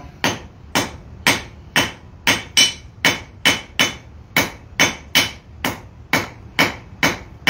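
Hand hammer striking a red-hot quarter-inch round rod on an anvil in a steady rhythm of a little over two blows a second, each blow with a short metallic ring. The rod's end is being forged square to draw out a taper point.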